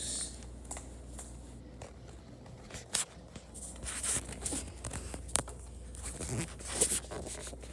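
Scattered taps, clicks and rustles from a handheld phone being carried and handled while its holder walks barefoot across a tiled floor.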